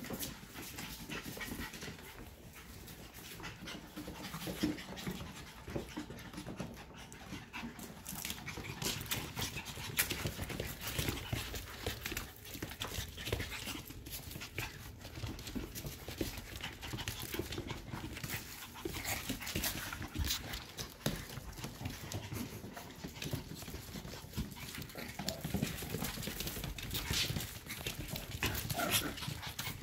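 F1B mini goldendoodle puppies playing on a hard floor: many irregular clicks of claws and paws scrabbling, with panting.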